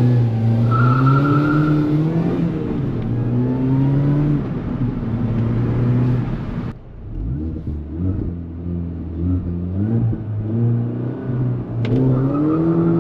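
Supercharged 1.6-litre four-cylinder engine of a Mini JCW GP (R53) pulling hard, its pitch rising in each gear and stepping down at the shifts. About seven seconds in the sound falls away abruptly, then the engine builds again.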